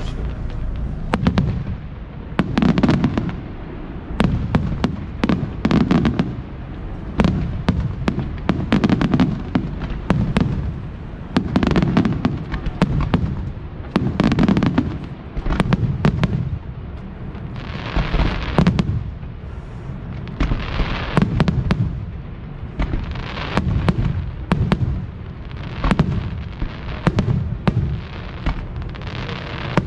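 Fireworks display going off continuously: deep booms every second or two mixed with many sharp cracks and bangs, with a few short hissing spells.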